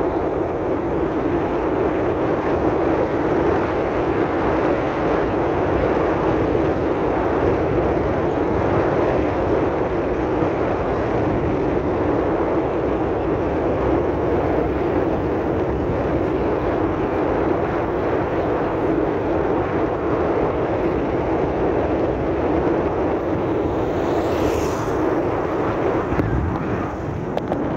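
Steady rush of wind and road noise from a vehicle moving along a dirt road, without letting up.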